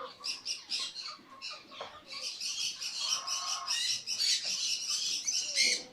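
Birds chirping: a stream of short, high calls that overlap and grow denser from about two seconds in.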